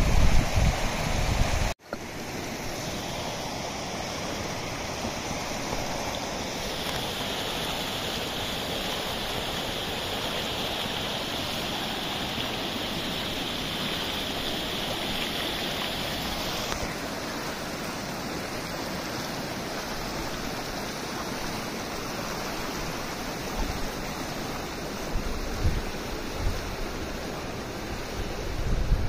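Clear, shallow mountain stream rushing over rocks and stones: a steady, even rush of water. Wind buffets the microphone for the first two seconds or so, and a few low bumps come near the end.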